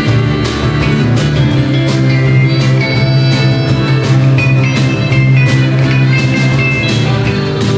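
Live country-rock band playing an instrumental passage with no vocals: a drum kit keeping a steady beat under electric and acoustic guitars, and a harmonica cupped to a microphone.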